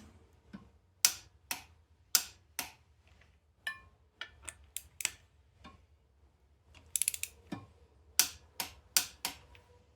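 A ratchet wrench clicking as the flywheel bolts are run down and tightened. Sharp clicks come mostly in pairs, with a quick run of clicks about seven seconds in.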